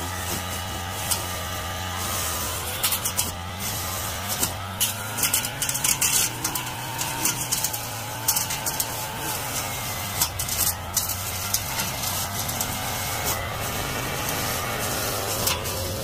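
Backpack brush cutter engine running steadily while it cuts lawn grass, its pitch wavering a little, with frequent sharp clicks throughout.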